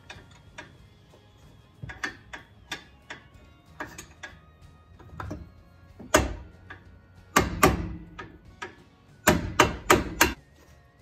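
Hammer blows on a socket extension, driving a stuck bolt out of the car's rear suspension. A string of light metallic taps comes first, then about eight heavy strikes in quick groups from about six seconds in.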